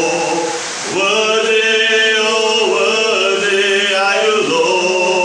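A man singing a slow worship chorus, holding long notes, with a short pause for breath about a second in.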